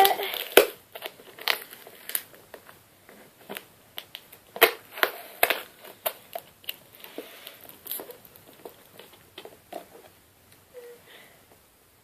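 A cardboard box wrapped in packing tape being cut and pried open with scissors: irregular crunching and crackling of cardboard and tape, busiest in the first half and thinning out near the end.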